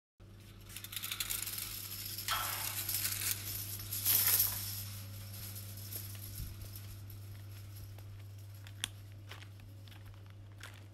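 A hanging bead door curtain clattering as someone pushes through its strands, loudest about four seconds in. This is followed by fainter crunching of footsteps on gravel and a few stray clicks, over a steady low hum.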